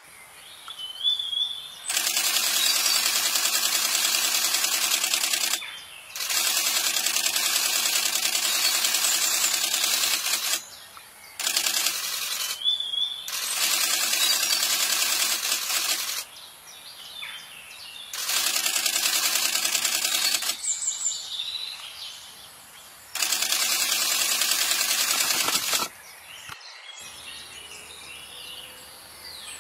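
Five long bursts of loud, even buzzing noise, each lasting three to five seconds and starting and stopping abruptly, with short rising bird chirps in the quieter gaps between them.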